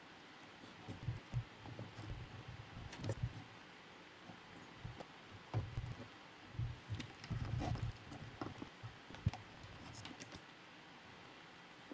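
Irregular light knocks and clicks of the plastic hexapod frame and its servo wires being handled, as the servo connectors are pushed onto the controller board's pins.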